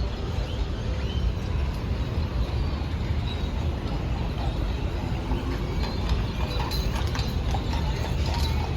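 Outdoor street noise: a steady low rumble, with a run of sharp clicks or clops in the second half.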